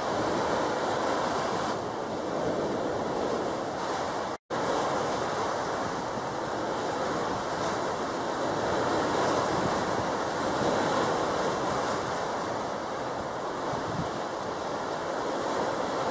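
Steady wash of the sea with wind buffeting the microphone; the sound cuts out for a split second about four seconds in.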